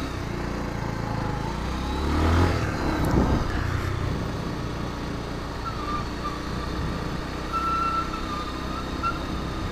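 Bajaj Pulsar 150's single-cylinder engine running steadily while the motorcycle cruises at about 45 km/h, heard from the rider's position with road noise, swelling briefly about two seconds in.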